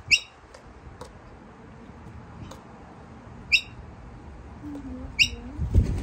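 Laughing kookaburras giving short, high single calls, three times, a few seconds apart.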